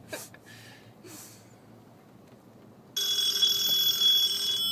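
Electronic telephone ring: a steady ring of several tones that starts abruptly about three seconds in and cuts off sharply after about two seconds.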